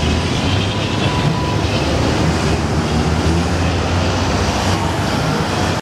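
Tatra tram running along street track, a steady low hum of motors and wheels with rail noise, amid city traffic.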